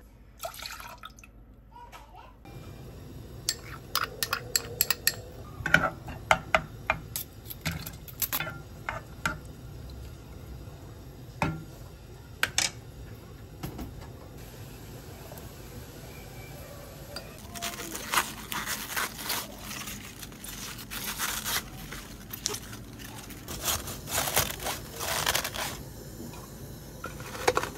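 Kitchen cooking sounds: mirin poured into a pot of water at the start, then a run of sharp clinks and knocks of utensils against pots and dishes, growing denser and busier in the second half.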